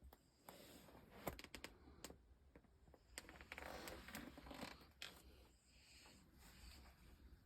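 Domestic cat snoring softly in its sleep: faint rasping breaths, the loudest a little past halfway, with a few light clicks.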